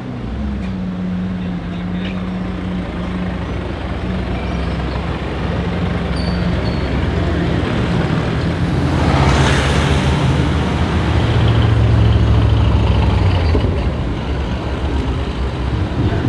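Street traffic with engines idling and moving off slowly: a low, steady engine drone that swells about twelve seconds in, with a short hiss about nine seconds in.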